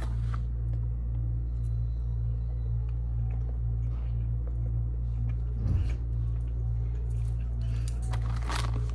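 A steady low hum, with faint light clicks and a single soft thump a little before the six-second mark.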